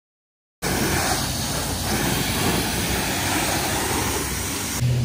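High-pressure wand of a self-service car wash spraying water onto a pickup truck: a loud, steady hiss that starts abruptly. A steady low hum comes in near the end.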